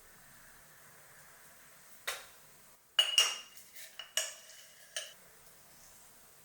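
Kitchenware clinking while dough ingredients are handled: one sharp clink about two seconds in, then a quick run of clinks with a brief ringing tone over the next two seconds or so.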